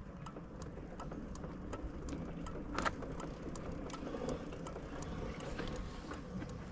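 Honda CB125F's single-cylinder engine running quietly at low revs, with light, evenly spaced ticking about three times a second.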